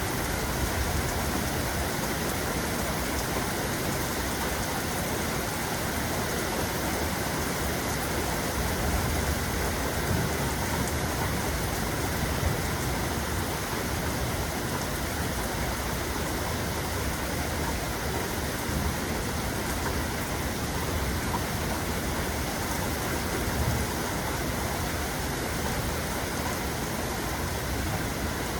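Steady rain: a dense, even hiss of falling water with a low rumble underneath.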